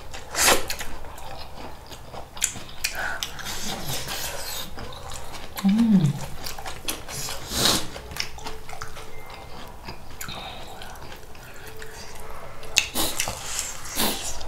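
Close-up eating sounds: biting and chewing of fried chicken, a string of short crunches and smacks, with a brief hummed voice sound about six seconds in.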